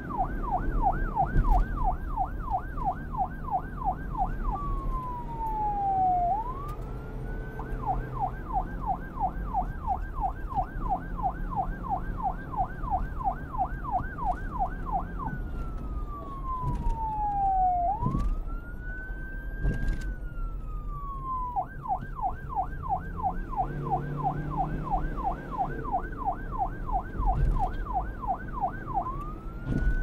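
Electronic police car siren switching between a fast yelp, about three to four pitch sweeps a second, and a slow wail that rises and falls, three times over, above a low vehicle rumble.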